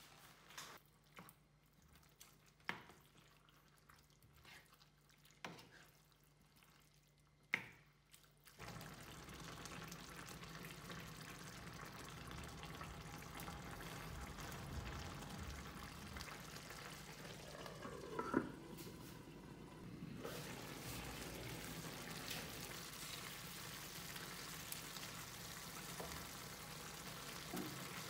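A few sharp taps and clicks in near quiet, then, about a third of the way in, a steady sizzle starts: minced beef, diced courgettes and crushed tomatoes cooking in a frying pan, with an occasional louder clink or scrape.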